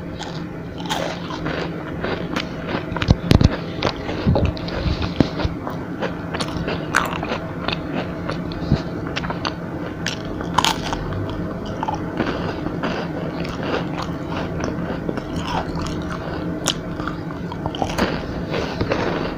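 Close-up biting and chewing of a crispy chocolate roll, with irregular crunches and smacking mouth sounds; the loudest crunches come about three seconds in.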